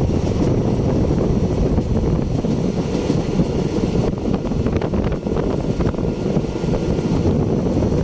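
Steady rumble of a moving passenger train, with wind buffeting the microphone.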